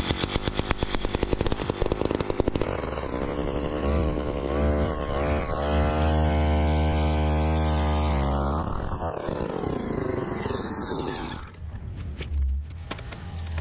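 Powered ice auger's engine running as the spiral bit drills a hole through lake ice. The engine runs fast and rough at first, settles into a steady note under load for a few seconds, then its pitch falls about eight to nine seconds in and it picks up again briefly near the end.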